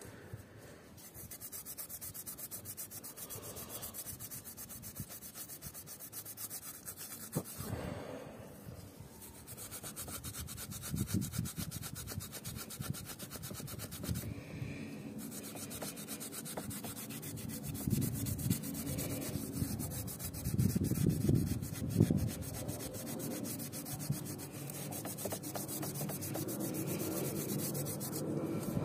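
Scotch-Brite pad rubbed by hand over the engine's cylinder head face where the tandem pump mounts: a scratchy scrubbing in uneven strokes. The pad is cleaning old gasket and silicone residue off the mating surface before the new gasket goes on.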